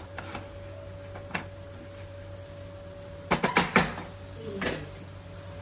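Kitchen utensils knocking against a cooking pan: a few light clicks, then a quick run of four sharp knocks about three and a half seconds in, over a steady low hum.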